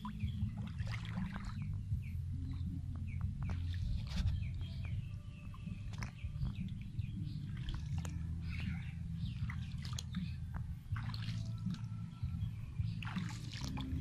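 Birds chirping on and off, in short scattered calls, over a steady low rumble.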